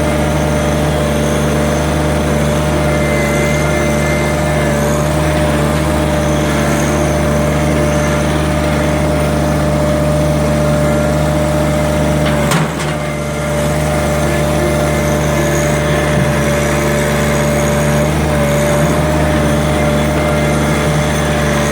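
John Deere 1-series compact tractor's three-cylinder diesel engine running steadily under working throttle, with a steady whine over the drone. One sharp knock about halfway through, after which the engine sound briefly dips.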